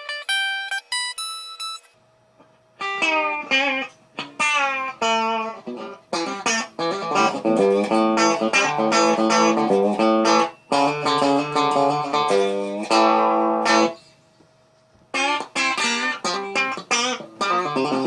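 Telecaster-style electric guitar, built from a DIY kit, played clean through a small Rogue practice amp: quick, twangy country picking of single notes and chords. The strings are set with very low action so they slap the fretboard on purpose. A few ringing high notes open it, and two short pauses about 2 s and 14 s in break up the playing.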